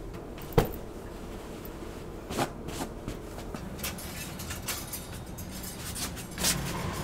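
Household handling noises: a sharp knock about half a second in, another click a couple of seconds later, then scattered light ticks and rustling as laundry is handled and hung.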